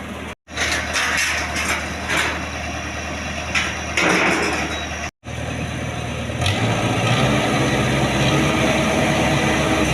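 Combine harvester's diesel engine running steadily, with bursts of hiss and clatter in the first half. About six and a half seconds in the engine gets louder and its note rises, as if put under load. Two brief gaps of silence cut the sound.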